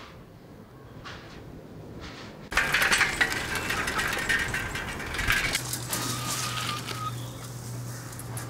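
Bicycle rattling and clattering as it rolls fast down a rough lane, starting suddenly about two and a half seconds in, then a short thin squeal of the brakes as it slows to a stop.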